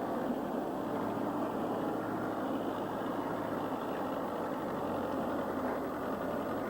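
Steady machine noise with a low, even hum, like a motor or engine running constantly.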